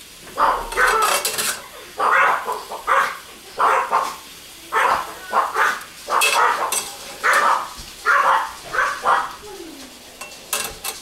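An animal calling repeatedly in short, loud calls, about a dozen of them at roughly one a second.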